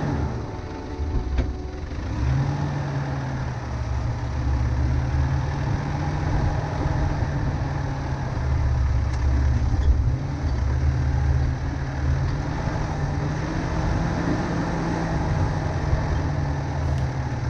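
Four-wheel drive's engine running at low revs as it crawls along a dirt track: a steady low drone that picks up slightly about two seconds in, with road noise underneath.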